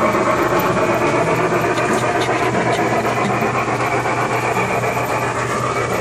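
Toy train running along its track, a steady mechanical rumble with a few faint clicks.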